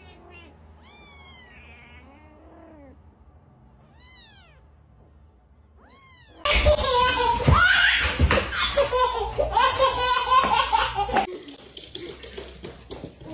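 A cat meowing a few times, each call rising and falling in pitch. About halfway through, a much louder, dense jumble of sound starts and then cuts off sharply a couple of seconds before the end.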